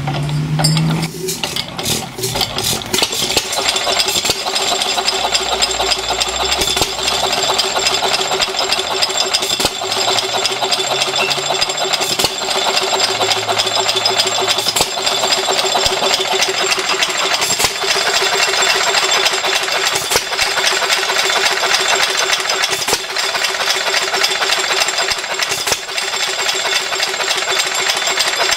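Buzacott 2 hp open-crank, horizontal-cylinder hit-and-miss engine, hand-cranked on a bit of choke, catching within the first couple of seconds and then running with a rapid, steady mechanical clatter. Louder firing knocks stand out every two to three seconds.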